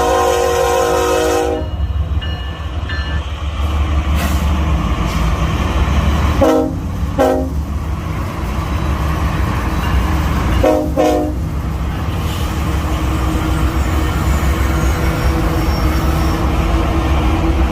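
Freight train locomotive horn over the steady low rumble of the rolling train: a long chord that ends about a second and a half in, then two short blasts at about six and a half seconds, and two more at about eleven seconds.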